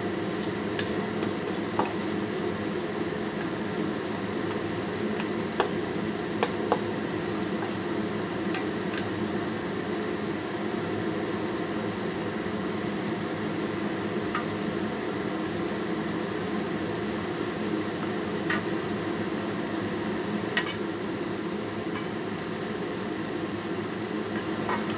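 Ox tail, potatoes and tomatoes sizzling steadily in a non-stick wok, over a faint steady hum, with a few light clicks scattered through.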